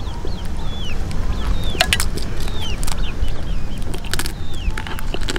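A bird calling with short chirps that fall in pitch, about two a second, over a low rumble. A few sharp crunches come as crispy grilled prawn shell is chewed.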